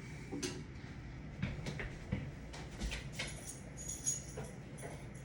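Faint scattered clicks and light metallic jingling, a few short bright clinks in the second half.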